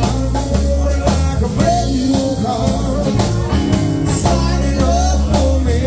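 Live band playing blues-rock: electric guitar over a drum kit, with steady low bass notes underneath.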